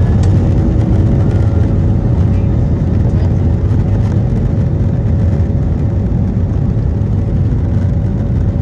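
Airbus A320-200 cabin noise in flight: the steady roar of the engines and airflow, with a faint steady whine.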